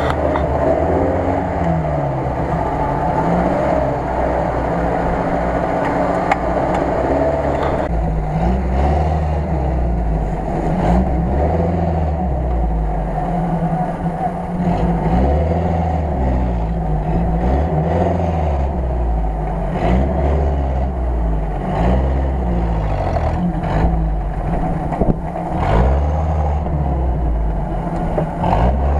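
UAZ-469 off-roader's engine working hard in deep mud. It drones under load at first, then from about eight seconds in revs up and drops back over and over, roughly every two seconds, as the wheels spin and it rocks for grip.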